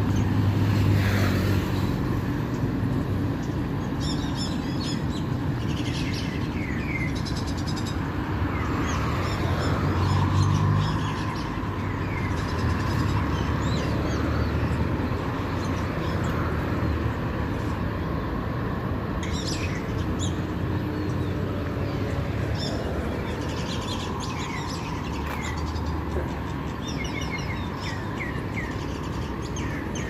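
Small birds chirping and twittering in short, scattered calls over the steady noise of road traffic, with vehicles passing by about a second in and again around ten seconds in.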